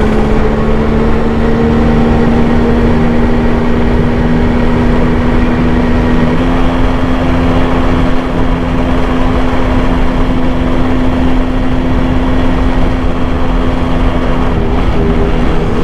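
Yamaha RX100's two-stroke single-cylinder engine running at a steady pace while the bike is ridden, heard from on board. Its pitch steps up slightly about six seconds in and eases off a little near the end.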